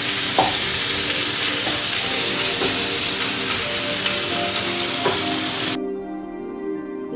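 Cubed beef sizzling in hot oil with garlic and ginger in a nonstick skillet, stirred with a wooden spatula, with a few light clicks. The sizzle cuts off suddenly near the end, leaving soft background music.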